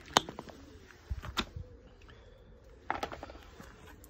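A few scattered clicks and light knocks from handling the pressure washer's mains plug at a cable-reel socket.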